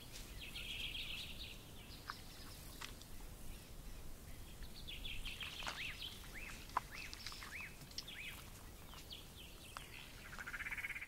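Wild birds calling in the bush: short chattering bursts, and a run of quick downward-sweeping chirps in the middle, over faint outdoor background. A few sharp clicks fall in between.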